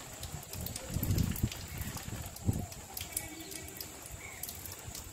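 Light rain easing off: scattered raindrop ticks over a faint steady hiss, with a low rumble about a second in and a shorter one about two and a half seconds in.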